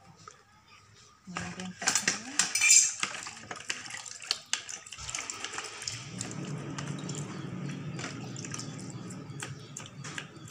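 Clinks and knocks of small objects handled against plastic, loudest about two to three seconds in, then from about six seconds a steady swishing of hands washing and rubbing in water in a plastic basin, with small clicks.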